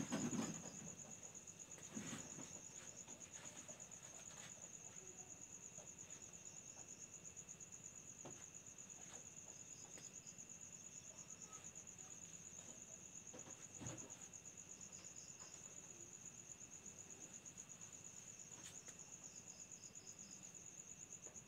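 Faint crickets chirping: a high, rapid, even pulsing that never lets up, with a second insect adding a short trill three times. A couple of soft knocks sound about two seconds in and again past the middle.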